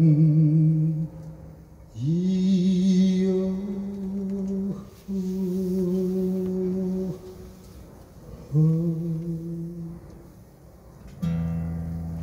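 Male singer humming long, held wordless notes over acoustic guitar as the song closes: four sustained notes with pauses between them, then a last guitar chord ringing near the end.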